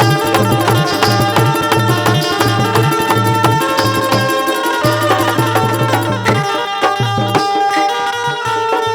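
Instrumental interlude of a Hindi folk song: an Indian hand drum keeps a steady rhythmic pattern under a melodic instrument playing the tune.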